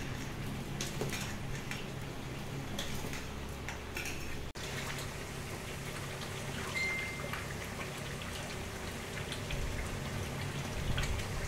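Water boiling hard in a steel pot on an induction cooktop, bubbling, with small clicks of a ladle stirring. After a cut about halfway in, a thick curry simmers and bubbles in a pan as a spatula stirs it, with one short high beep a little later.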